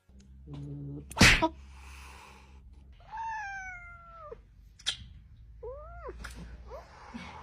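A domestic cat meowing: one long meow that falls in pitch about three seconds in, then a shorter rising-and-falling meow about six seconds in, with a sharp knock about a second in.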